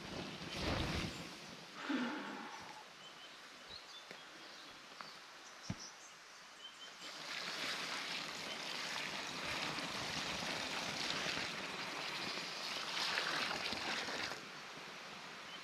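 Water poured from a 10-litre billy onto a campfire to douse it: a steady rushing hiss for about seven seconds that stops abruptly near the end. A few small knocks and rustles come before it.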